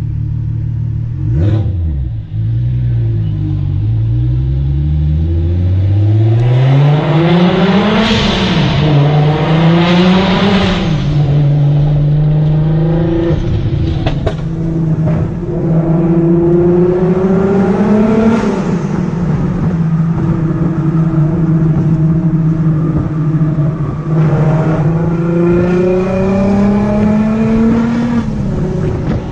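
Volkswagen Golf Mk4 R32's VR6 engine heard from inside the cabin, accelerating through the gears: the note rises and falls back at each gear change several times, with steady cruising stretches between.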